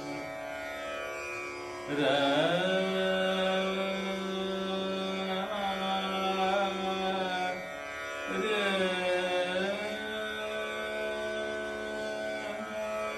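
Tanpura drone with its strings sounding a steady, overtone-rich tone. About two seconds in, and again near eight seconds, a louder melodic note slides up and settles onto the drone's pitch.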